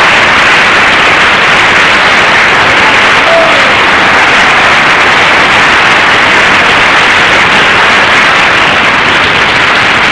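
Audience applauding and cheering steadily in a live recording, a dense even clatter of clapping.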